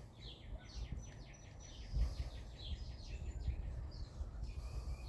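Small birds chirping, with a quick run of short down-slurred chirps from about one second in to near the end, over low dull thumps and rumble, the loudest about two seconds in.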